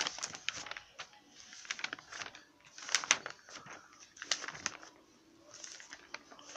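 Handling noise close to the microphone: irregular clusters of light clicks and rustles as things are moved and handled by hand.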